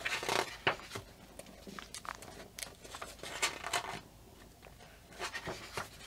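Paper pages of a thick paperback colouring book being turned and handled: rustling in several short bursts, loudest in the first second.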